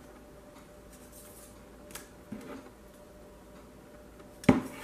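Hard plastic air-fryer crisper plate being handled: a faint click about two seconds in, a short knock just after it, and a sharp, much louder plastic click-knock near the end as fingers work at a small clip-on protective piece on the plate.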